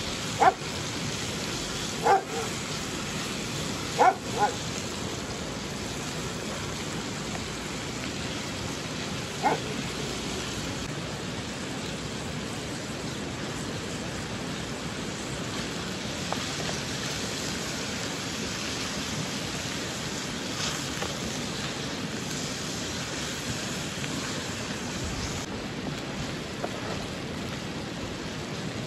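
A dog barks five times, spread over the first ten seconds, over a steady hiss.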